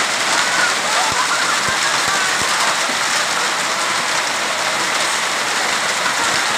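Heavy rain mixed with hail pelting wet paved ground: a steady, dense hiss of countless impacts.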